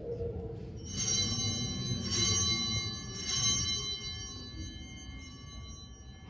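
Altar bells rung three times, about a second apart, at the elevation of the chalice after the consecration. The clustered high ringing tones die away over the following few seconds.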